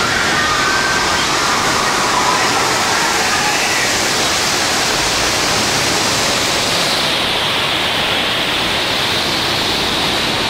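Large volume of staged flood water pouring and cascading in a theme-park ride effect, a loud, steady rush that thins slightly in its highest hiss about seven seconds in.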